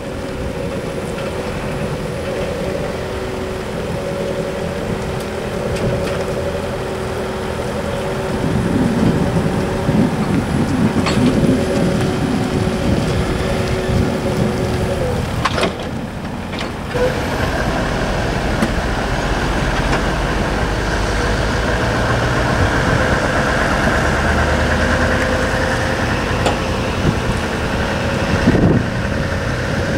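Forklift engine running steadily under a steady whine while it works a hydraulic boat-lift trailer. About halfway through the whine drops out and a louder, hissier engine note takes over as the forklift tows the empty trailer away.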